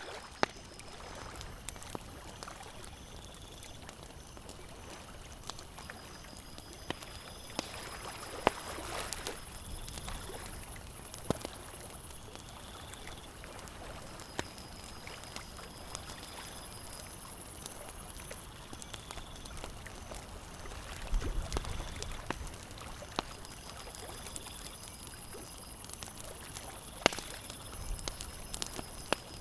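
Campfire crackling with scattered sharp pops of varying strength, over water lapping and trickling at a lakeshore. A high, steady buzz comes and goes in the background.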